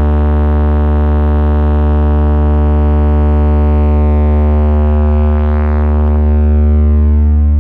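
Large DJ speaker-box stack playing a loud, steady synthesizer drone with very heavy bass: one held chord that does not change, with a faint sweep swelling in the upper range midway.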